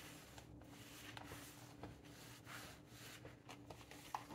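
Near silence, with faint soft rubbing and a few light ticks of cotton fabric being pressed with a clothes iron along a zipper fold.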